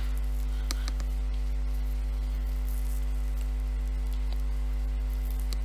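Steady electrical mains hum at around 50 Hz with its overtones, picked up on the recording, with a couple of faint clicks.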